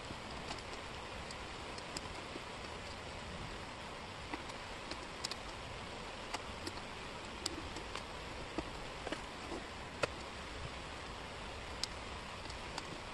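Small wooden jigsaw pieces clicking and tapping against each other and the table as they are handled, a few sharp clicks a second over a steady hiss.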